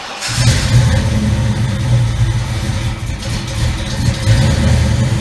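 A Ford 302 (5.0 L) V8 in a Fox-body Mustang fires on the first try and runs steadily. The distributor has just been reinstalled with the rotor pointed at cylinder #1 at top dead center on the compression stroke, so spark, fuel and timing line up.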